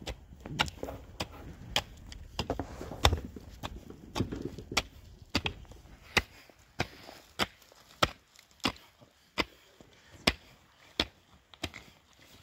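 A hand tool striking repeatedly in a steady chopping rhythm, about three sharp blows every two seconds.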